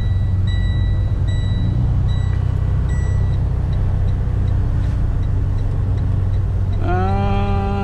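Semi truck's diesel engine running with a steady low rumble heard from inside the cab. For the first three seconds an electronic beep sounds about once a second, and a voice starts near the end.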